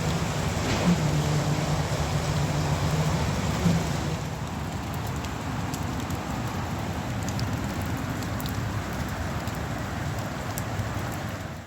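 Steady rain hiss with scattered drip ticks. A construction machine's engine hums in the first four seconds or so, then fades out.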